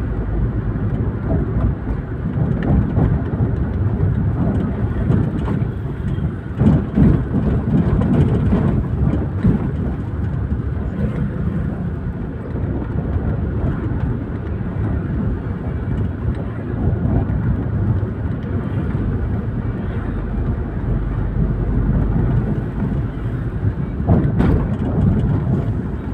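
Toyota Avanza 1.3 straight-four engine and road noise while driving: a steady low rumble that swells briefly a few times, louder about a quarter of the way in and again near the end.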